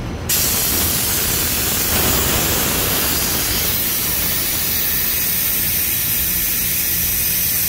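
Pressurised nitrogen, about 200 psi, hissing out through a refrigeration gauge manifold and hoses as the pressure-test charge is vented from an AC system. The loud, steady hiss starts abruptly when the valve is cracked open. The charge held for 30 minutes without dropping, so the system passed its leak test.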